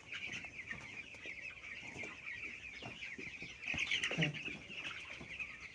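A large flock of chickens calling all at once, a dense, continuous high-pitched chatter of many overlapping cheeps, with one short lower call about four seconds in.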